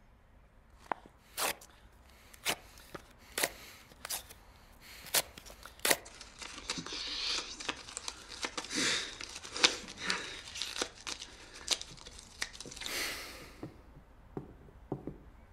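A photograph torn up by hand: a string of separate sharp rips, then a longer stretch of quick tearing and rustling paper that stops a couple of seconds before the end.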